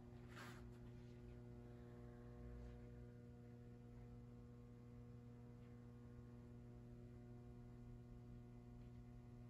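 Near silence with a steady electrical mains hum, one low tone and its overtones held throughout. A brief soft rustle about half a second in.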